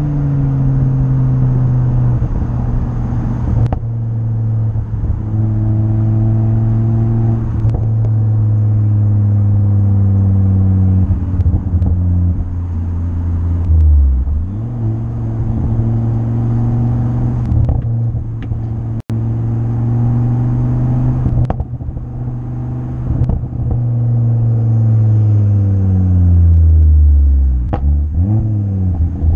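Ford Focus ST's 2.5-litre turbocharged five-cylinder engine under load at track pace, heard on board. The note holds steady, then falls and drops sharply about halfway through as it comes down a gear, climbs slowly again, and drops away once more near the end.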